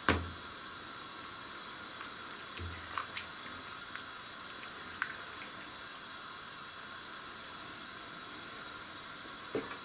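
Basmati rice boiling in a pot of water over a gas burner on full: a steady hiss, with a few light taps of a spatula against the pot as it is stirred.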